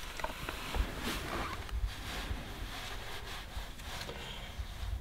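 Faint clicks and light knocks of a throttle body and its fittings being handled and lifted out of the engine bay, over a low, steady background rumble.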